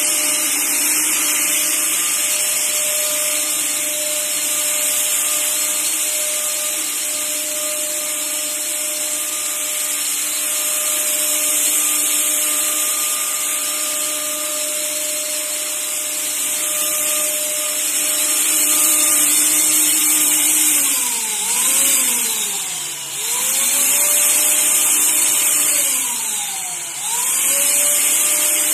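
Handheld 1200 W electric disinfectant fogger running continuously, its blower motor whining steadily over a loud hiss of air and spray mist. Twice near the end the motor's pitch sags and then climbs back up to speed.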